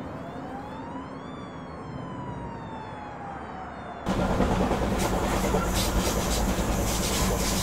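A distant siren wails, rising slowly and then falling. About four seconds in, the loud rush of a BART train passing on the elevated track cuts in suddenly, with a steady low hum underneath.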